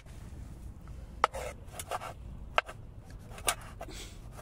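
Kitchen knife knocking on a wooden cutting board while slicing mushrooms and tomato: a few sharp, irregularly spaced knocks.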